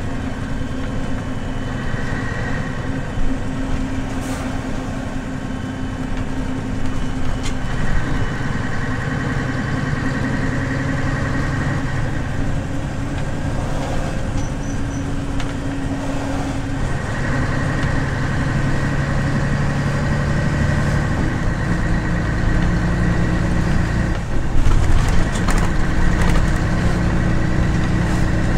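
Inside a 1997 Scania CN113CLL bus on the move: the Scania DSC 11.71 six-cylinder diesel drones under road noise. The engine note shifts pitch a few times, and a few knocks and rattles come near the end.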